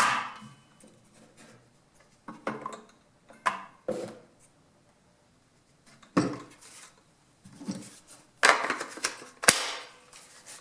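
Tools and parts being handled on a hard surface: scattered clicks, knocks and a short scrape, with no saw motor running.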